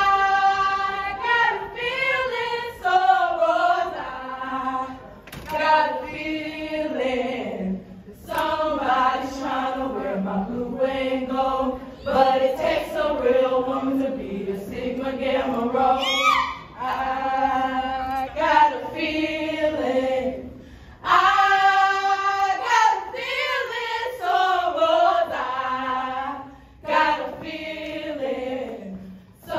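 A group of women singing together in unison, in phrases of a few seconds separated by short breaks.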